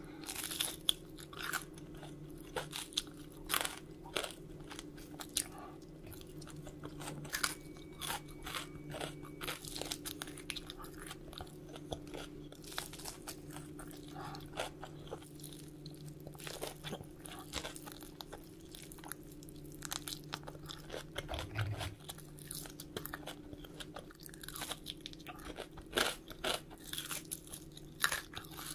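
Close-miked bites and chewing of crunchy crumb-coated fried lobster tails: sharp, irregular crackling crunches, repeated throughout.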